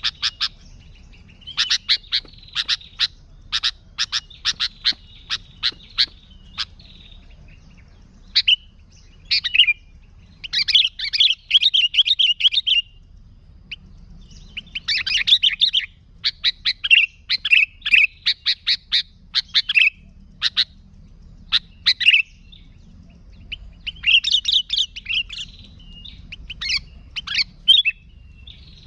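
Sooty-headed bulbul singing: runs of short, sharp chirps broken by several bursts of fast chattering song, with brief pauses between phrases.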